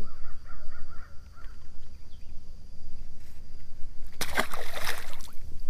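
A bird calling a quick run of short notes over steady outdoor background noise, then a loud burst of noise about four seconds in that lasts about a second.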